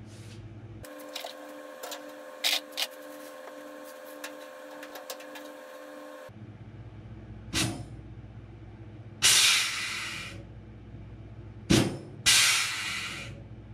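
Pneumatic blind rivet puller setting LP4-3 aluminium blind rivets in the rear spar, in the second half twice: a sharp onset or click as the rivet is pulled, then about a second of hissing air.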